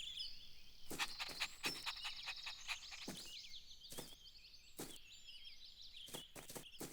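Faint outdoor ambience of many small birds or insects chirping, with scattered light knocks, densest about a second in and again near the end.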